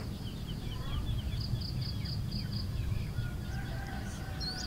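Birds chirping outdoors: many quick falling chirps and a high call repeated about five times a second, with a long faint call from a chicken in the second half, over a low steady outdoor rumble.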